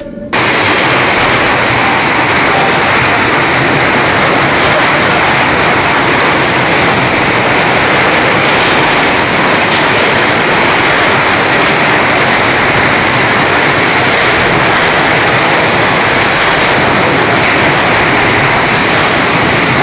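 Goods train rolling past at close range, a loud, even rushing noise as its overloaded wagon scrapes through the platform's roof sheeting.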